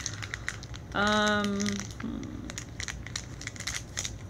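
Plastic Shopkins blind packaging crinkling and crackling as it is worked open by hand, with a short held humming note about a second in.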